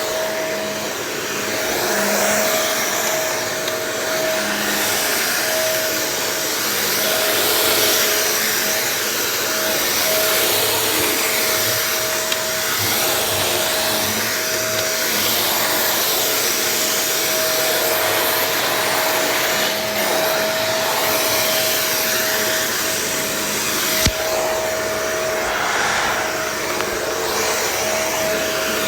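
Vacuum cleaner running continuously, a steady rushing of air over a constant motor whine, with one sharp knock about 24 seconds in.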